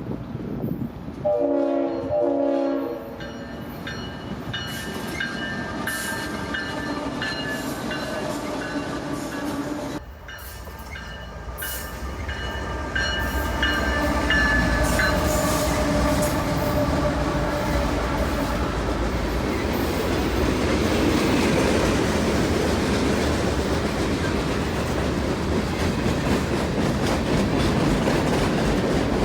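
Diesel freight locomotive sounding its air horn in two short blasts, its chord tones lingering for several seconds. After a sudden change about ten seconds in, the train passes: the locomotive engines work hard on the grade and the freight cars' wheels clatter over the rail joints, growing louder about halfway through.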